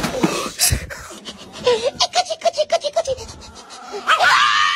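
A person laughing in a quick run of short 'ha-ha' pulses that fall in pitch, after a loud, noisy scuffle at the start. A short rising cry comes near the end.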